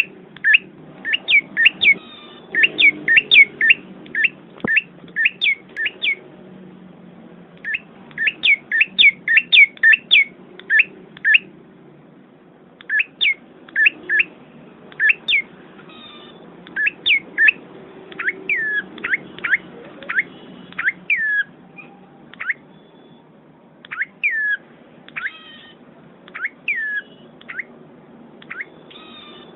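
A small forest bird chirping: quick runs of short, high, downward-sliding chirps, several a second, broken by brief pauses.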